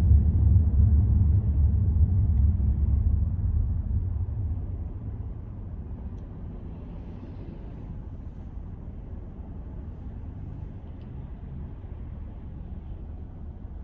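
Car driving on city roads: a low rumble that fades about four to six seconds in to a quieter, steady hum.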